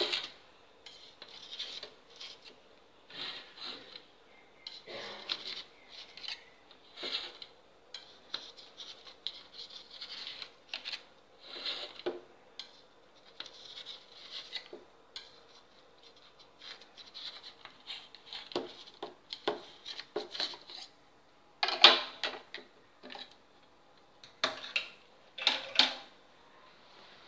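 Knife scraping and clicking against the inside of a stainless steel bowl in short, irregular strokes, working around the edge of a set steamed milk pudding to loosen it for turning out. A few louder clinks come near the end.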